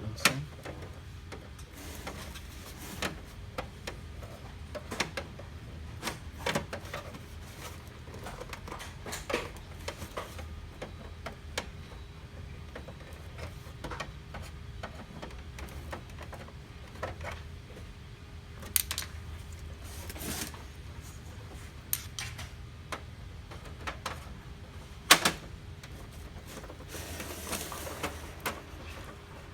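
Plastic casing parts of an HP LaserJet MFP 135a laser printer being handled and pried apart during disassembly: irregular small clicks and knocks every second or two, with one sharp snap about 25 seconds in, over a low steady hum.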